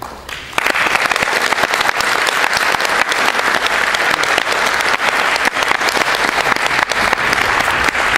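Audience applauding, the clapping beginning about half a second in and holding steady.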